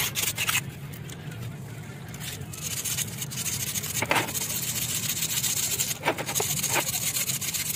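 A hand scraper rasping over a diesel engine piston in repeated strokes, cleaning deposits from its surface, over a steady low hum.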